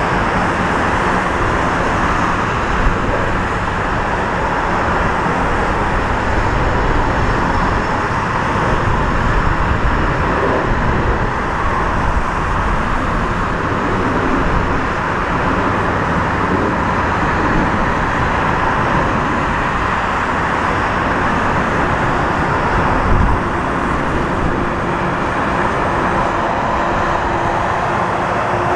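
Boeing 777-200ER's twin turbofan engines running at low taxi thrust, a steady rumble with a steady whine over it as the airliner rolls along the taxiway.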